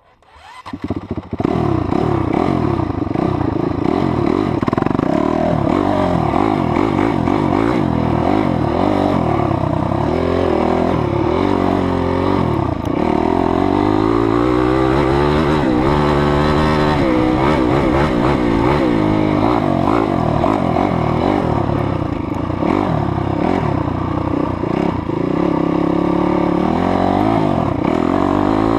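Honda CRF250X dirt bike's 250 cc four-stroke single-cylinder engine being ridden, revving up and down as it accelerates and shifts. The engine comes up to full loudness in the first second and a half.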